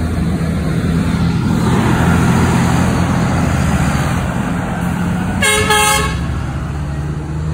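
Military cargo trucks' diesel engines running steadily as they drive past, with a short horn blast about five and a half seconds in.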